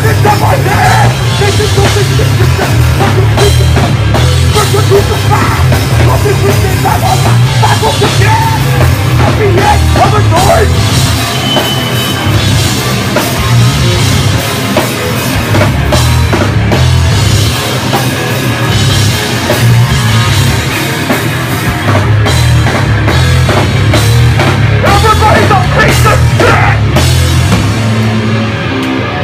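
Live hardcore band playing loud: pounding drum kit, distorted guitars and bass, with a vocalist screaming into a microphone.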